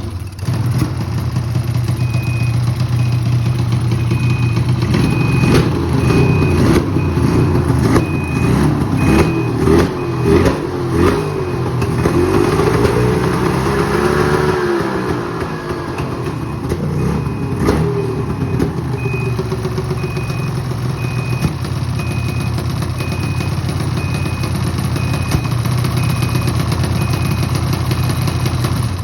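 Ski-Doo Summit snowmobile's two-stroke engine running with the misfire the owner is asking about. It idles steadily, then revs up and down a few times in the middle before settling back to idle. A high beep repeats about one and a half times a second, pausing while the engine revs.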